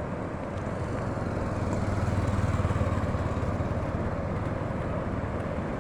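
A motor engine running as a steady low rumble, swelling about two seconds in and then easing.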